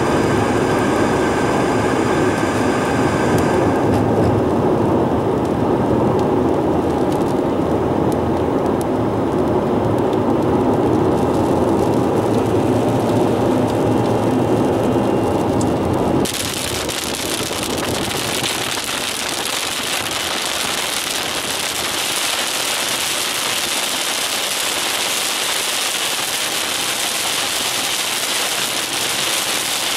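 Road and engine noise inside a moving car. About sixteen seconds in it changes suddenly to heavy rain falling on the car's roof and windshield, a steady hiss.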